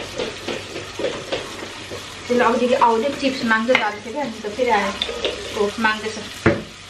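Food frying in a pan on the stove while a spatula stirs and scrapes through it. From about two seconds in, a voice sounds over the frying.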